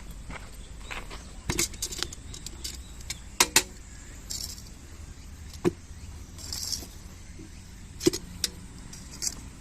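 Irregular sharp clicks, knocks and clinks of small hard parts being handled, with a couple of brief scrapes.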